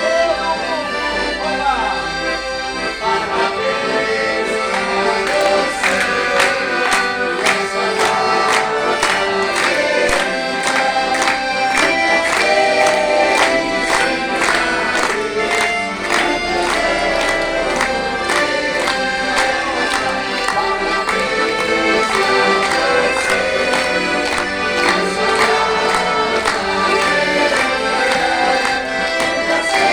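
Several accordions playing a tune together, with a steady beat that sets in about six seconds in.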